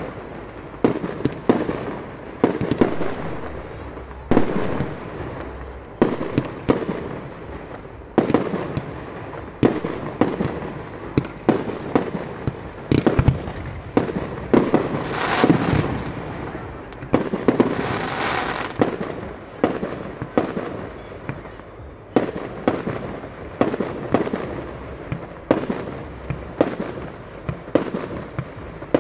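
Fireworks display: aerial shells launching and bursting in a rapid, steady run of bangs, about one to two a second, with a spell of hiss in the middle.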